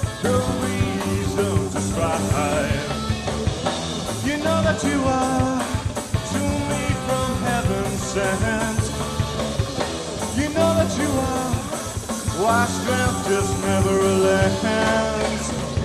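Rock band playing live, with a voice singing over the instruments.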